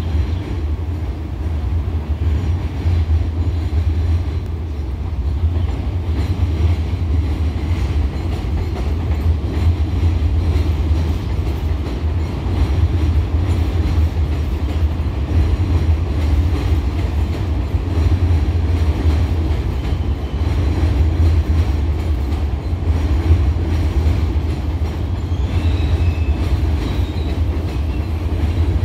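R62A subway train running along an elevated steel structure: a steady low rumble, with a faint high wheel squeal near the end.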